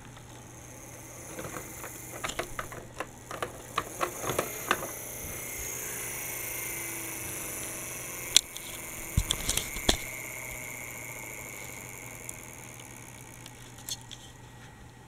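Plastic toy articulated bus being handled and rolled over plastic toy track: a run of light clicks and rattles, with a few sharper clicks just past halfway.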